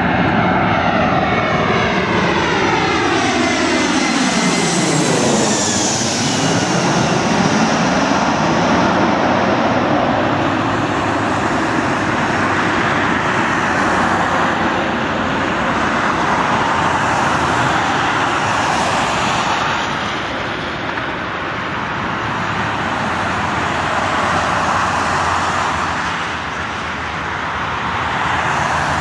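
Airbus A319's twin CFM56 turbofan engines passing low overhead on final approach. Their whine falls in pitch as the aircraft goes by about four seconds in, then settles into a steady jet roar as it heads away toward the runway.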